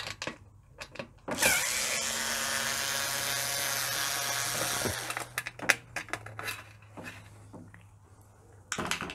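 Small electric screwdriver running for about three and a half seconds, a steady whine as it backs out a Torx screw from the dishwasher's lower panel. Short clicks and taps of the tool and screws being handled come before and after it.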